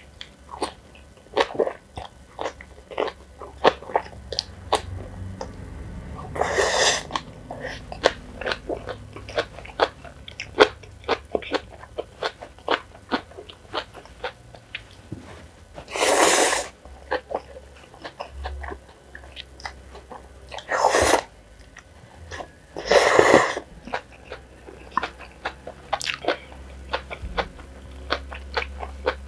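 Close-miked eating of jjajang ramen noodles: constant wet chewing and mouth clicks, broken by four louder slurps about 7, 16, 21 and 23 seconds in.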